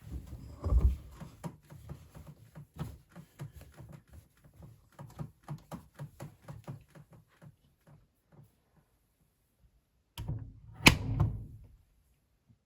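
Blomberg WAF 7442 SL washing machine giving a run of irregular light knocks and clicks, then a heavy thunk with a sharp click about eleven seconds in.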